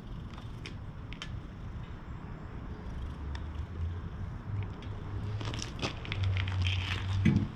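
A hand patting and stroking a tortoiseshell cat's lower back up close: soft low pats and fur rustle, with scattered small clicks and crackles. A short rising sound comes near the end and is the loudest moment.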